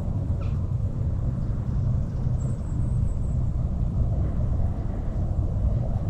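Steady low rumble, with a faint thin high tone about halfway through.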